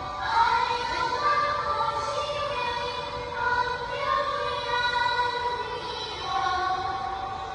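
A song with several voices singing long held notes, used as music for a dance.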